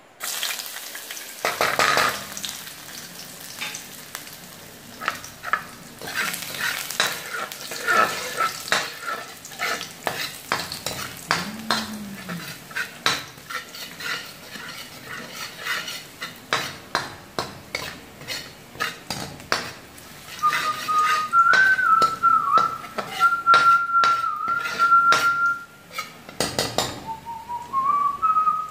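Sliced garlic frying in hot fat in a wok, sizzling, while a metal ladle stirs it and scrapes and taps against the pan. From about 20 seconds in, a wavering whistle sounds over the frying.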